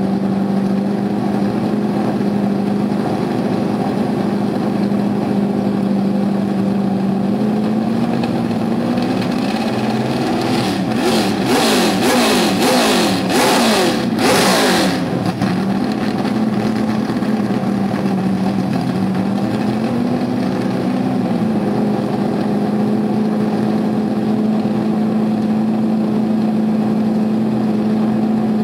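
A car engine idling steadily. About ten seconds in it is revved in several quick blips for roughly four seconds, then settles back to idle.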